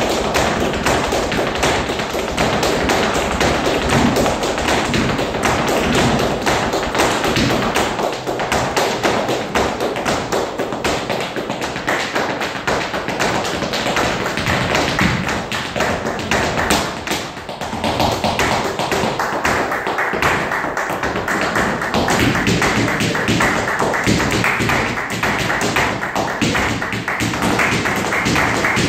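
Flamenco footwork (zapateado): a dancer's shoes striking the stage floor in fast, dense rapid-fire taps and stamps, with hand-clapping (palmas) alongside. The stamping eases briefly about two-thirds of the way through, then picks up again.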